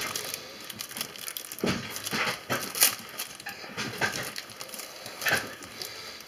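Thin clear plastic packaging bag crinkling and rustling in irregular bursts as it is handled and pulled open.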